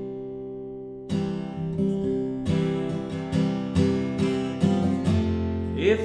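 Acoustic guitar strumming chords in a slow rhythm: a chord rings out and fades for about a second, then the strums resume.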